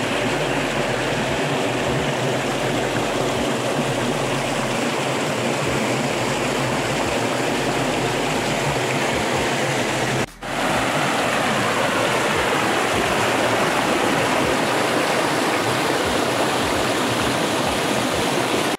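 Steady rush of water pouring over rocks at a small waterfall and stream, with a brief break about ten seconds in.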